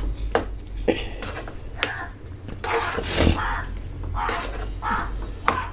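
Metal ladle stirring thick gravy in a nonstick kadai: scattered scrapes and light knocks of the ladle against the pan, thickest around the middle.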